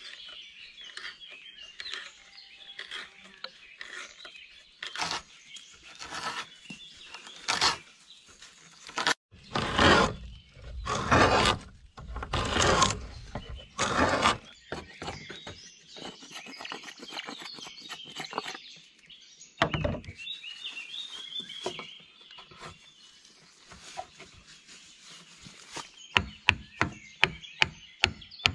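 Hand tools working wood, with birds singing throughout. Irregular loud wooden strokes and scrapes come through the middle, and near the end a fast, even run of knocks on wood starts, about three a second.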